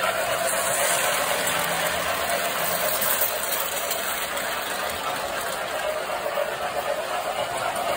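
Electric model trains running on tinplate track: a steady rolling rumble of metal wheels and motors as a semi-scale Norfolk & Western passenger train passes, easing off slightly in the second half.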